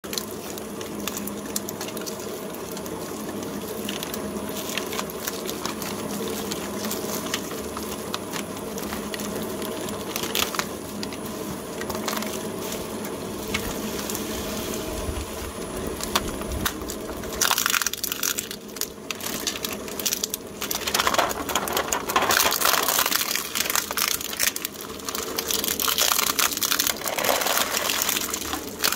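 Twin-shaft shredder running with a steady electric-motor hum and occasional clicks. About seventeen seconds in, plastic surprise-egg capsules start being cracked and crushed between its blades, a loud dense crackling that comes and goes in waves.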